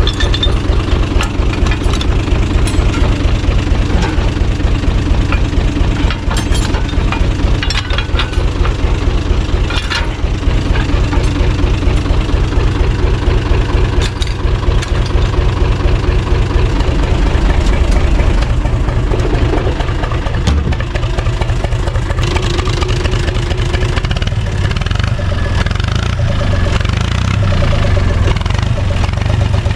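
UTB U445 tractor's four-cylinder diesel engine idling steadily with an even firing beat, and a few sharp metallic clanks in the first ten seconds. The engine note shifts slightly about twenty seconds in.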